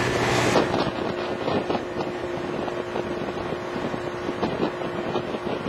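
Motorboat underway: its engine runs with a steady hum while wind buffets the microphone.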